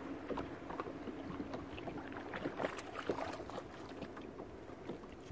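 Lake water lapping and splashing against a fishing boat's hull while a hooked white bass is reeled in to the boat, with many short, irregular slaps and clicks.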